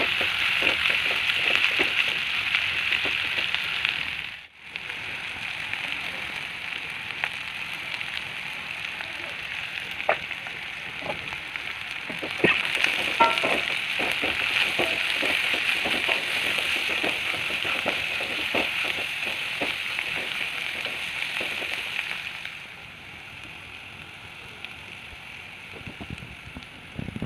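Bitter gourd frying in hot oil: a steady sizzle with scattered small clicks and taps, likely from stirring in the pan. There is a brief break a few seconds in, and the sizzle drops to a quieter level near the end.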